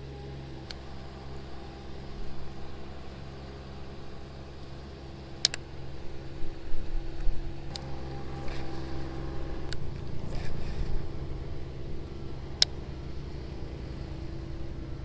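A steady engine hum, its low note changing about ten seconds in, with a few sharp clicks.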